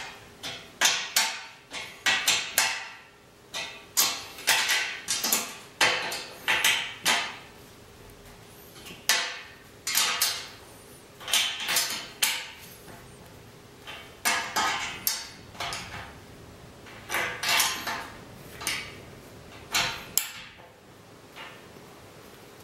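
Steel bolts, nuts and washers clinking and clattering against a steel angle bracket as they are fitted by hand, in irregular clusters of sharp metal clicks with short pauses.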